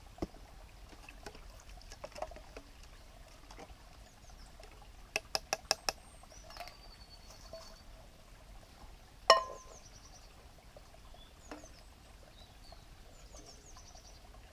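Camp cookware being handled: a quick run of five sharp clicks about five seconds in, then a single loud, ringing clink of cookware a little past the middle. Faint high chirping can be heard in the background.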